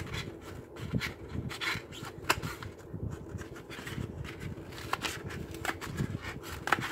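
Small scissors snipping through a fibrous peat pot tray: irregular short crunchy snips and clicks, with rustling of the pots in the hands.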